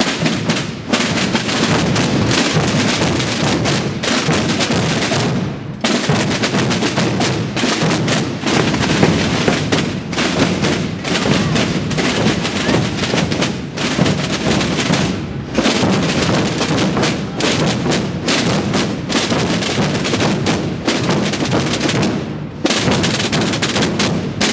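Massed Holy Week procession drums, snare drums and rope-tensioned drums and bass drums (bombos i tambors), beating together in a loud, continuous roll of strokes, with a few brief breaks.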